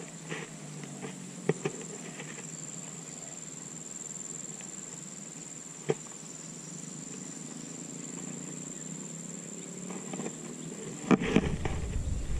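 Steady high-pitched insect drone with a few faint clicks; about eleven seconds in, footsteps crunching on loose gravel and stones start and continue.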